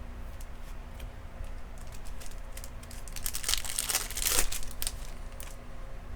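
A trading card pack's wrapper crinkling and being torn open, with scattered light clicks of cards being handled. The crinkling is loudest about three and a half to four and a half seconds in.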